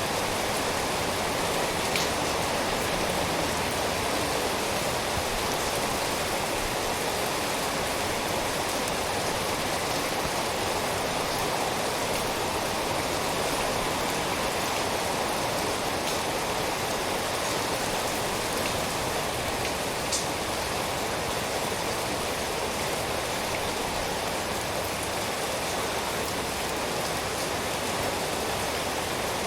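Steady, even rainfall, a dense hiss of countless drops with a few sharper single drop taps now and then.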